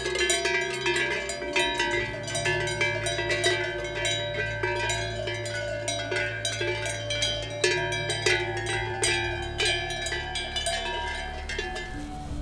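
Cowbells on a small herd of grazing cattle clanking irregularly, several bells ringing at once.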